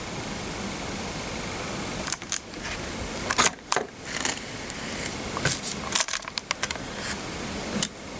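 Plastic clicks and rattles of a Lego model being handled, from about two seconds in, over a steady hiss with a faint high tone.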